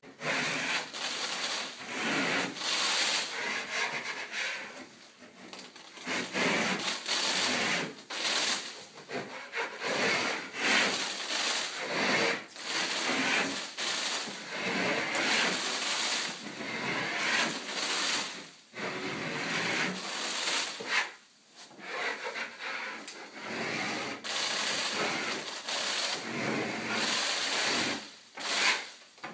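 Wide metal scraper blade scraping popcorn (stipple) texture off a drywall ceiling in repeated rasping strokes, each lasting one to a few seconds, with short pauses between them.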